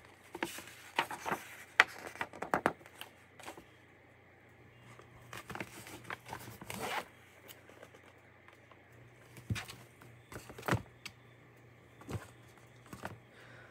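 Book pages being handled and turned: irregular paper rustles, scrapes and light taps, a quick cluster in the first three seconds, a longer rustle around seven seconds in, then a few scattered ones.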